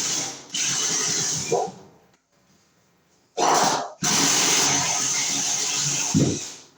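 Cordless drill boring a hole through wood framing, run in several bursts with short pauses between them and a quiet gap of about a second and a half in the middle.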